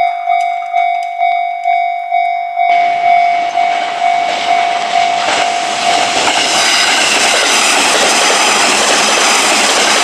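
Japanese level-crossing warning bell clanging about twice a second. About three seconds in, the noise of a passing train starts suddenly, grows into a steady rush and drowns the bell out.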